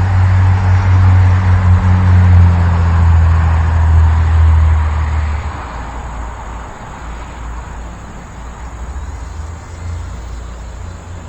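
Wind buffeting the microphone as a loud low rumble, with a gust easing off about halfway through to a weaker rumble.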